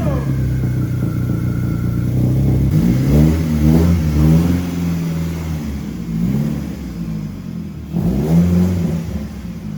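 BMW E36 Compact's M44 inline-four engine running. It idles steadily at first, then is revved up and let fall back several times.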